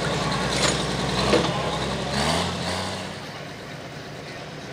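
A heavy diesel engine idling with a low, even beat. A little past two seconds in it rises in pitch and then fades away.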